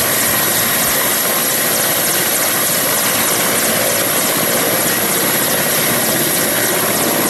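Helicopter running steadily: rotor and engine noise.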